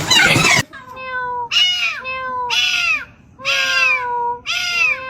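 A cat meowing repeatedly, about five drawn-out meows in a row. They follow a noisy stretch that cuts off about half a second in.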